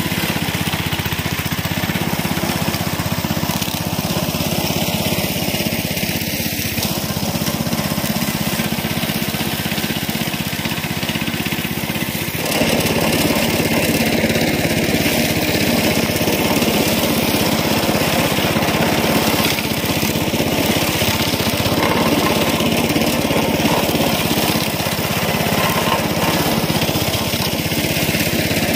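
Small petrol engine of a wheeled push grass cutter running steadily at high speed, its modified blade disc cutting weeds and scraping the topsoil. About twelve seconds in the sound becomes louder and harsher.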